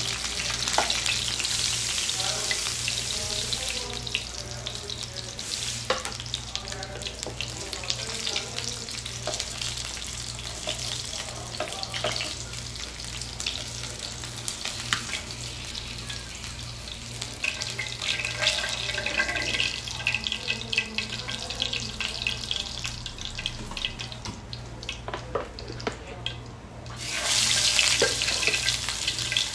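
Hot oil sizzling softly in a frying pan as fried rohu fish steaks are lifted out, with a metal spoon and knife clicking and scraping against the pan. Near the end a fresh marinated piece of fish goes into the oil and the sizzling turns suddenly loud.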